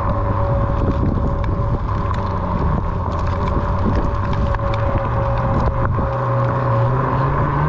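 Onewheel XR electric board riding, its hub motor humming under wind rushing over the microphone. The hum rises in pitch near the end as the board speeds up.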